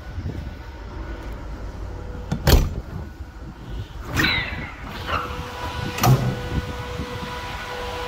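Steady mechanical hum from a running truck, broken by three loud clunks about two seconds apart; the second is followed by a short squeal.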